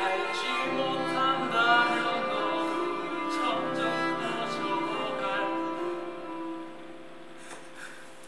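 Live band playing a slow passage of held chords over a bass line that moves twice, dying away about six to seven seconds in.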